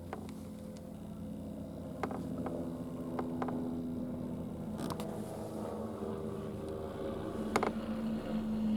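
A distant engine droning steadily, its pitch drifting a little, with a few sharp clicks over it.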